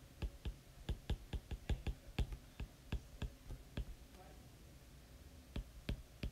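Stylus tip tapping and clicking on a tablet's glass screen during handwriting: a quick, irregular run of sharp taps, a pause of about a second and a half, then more taps near the end.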